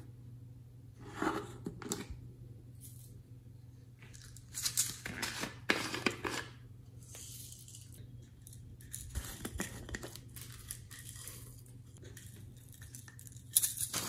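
Hands handling and opening small plastic containers, in short crackly, scratchy bursts separated by pauses, over a faint steady low hum.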